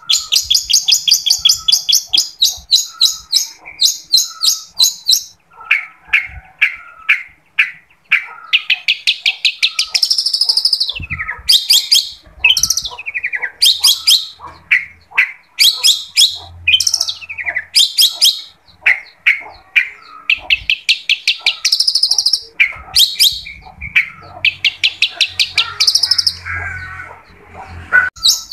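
Long-tailed shrike (cendet) singing a loud, varied song in full voice: rapid strings of high chattering notes, about seven a second, broken by sliding whistles and harsher, lower phrases.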